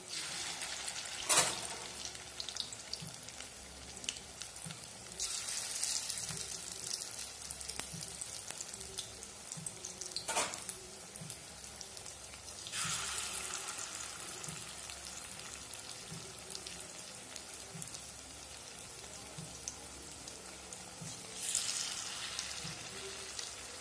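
Bottle gourd and gram-flour fritters deep-frying in hot mustard oil in a kadai: a steady sizzle that flares up louder three times as fresh dollops of batter go into the oil, with two sharp clicks.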